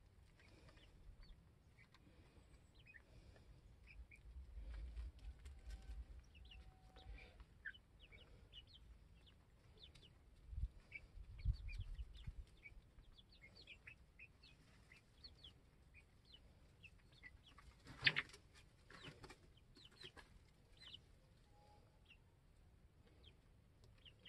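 Young chickens giving faint, scattered short peeps and soft clucks. There is a brief louder noise about eighteen seconds in, and a smaller one just after it.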